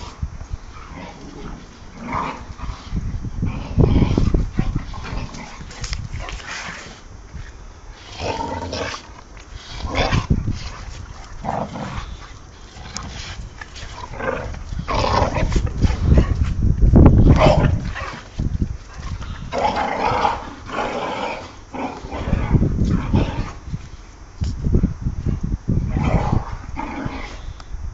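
Two young American bulldogs play-fighting, growling in irregular bursts with occasional barks, loudest past the middle.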